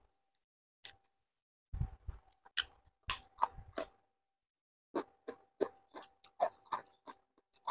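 Close-up chewing and crunching of chicken feet: an irregular string of short crunches and mouth clicks with brief silences between them, growing denser in the second half.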